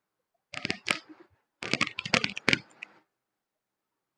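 Two quick runs of sharp clicks and taps, the first about half a second in and the second just over a second and a half in, like keys being typed.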